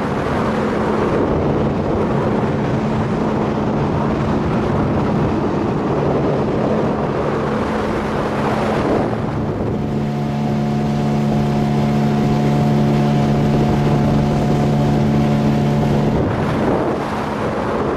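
Outboard motor pushing an inflatable boat along at speed: a steady engine drone under rushing wind and water noise. The engine note turns clearer and fuller, with more overtones, from about ten seconds in until about sixteen seconds.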